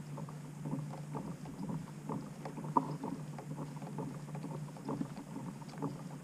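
Small water ripples lapping against a small boat's hull: light, irregular clicks and knocks over a low steady hum.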